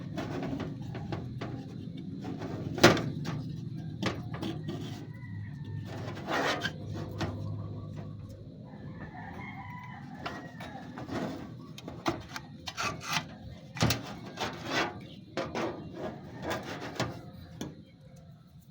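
Irregular clicks and knocks of small parts and tools being handled while a PC power supply is taken apart, the sharpest about three seconds in and again near fourteen seconds, with a rooster crowing in the background.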